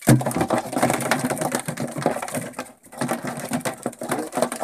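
Nylon crab gill net being hauled hand over hand over the side of a small boat: a dense, loud crackling and rasping of the mesh dragging against the hull, easing off briefly a little past halfway.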